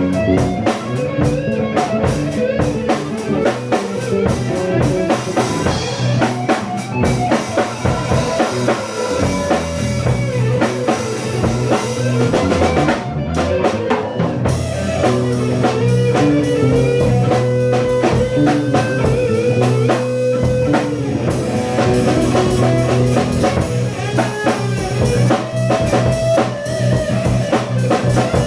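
Rock band improvising live: electric guitar playing sustained melodic lines over bass and a drum kit beating steadily.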